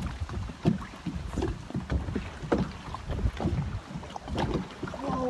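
Wind rumbling on the microphone, with irregular light clicks and knocks several times a second while a fish is reeled in from a bass boat's deck.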